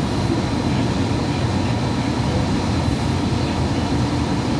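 Hudson-Bergen Light Rail car running at speed, heard from inside the car: a steady rumble with a faint high steady tone.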